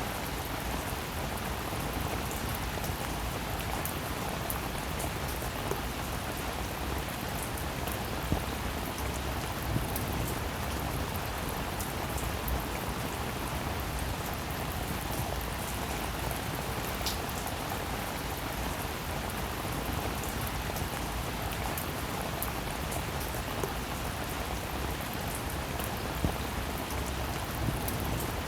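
Steady rainfall: an even hiss of rain with scattered louder drops ticking on a surface now and then.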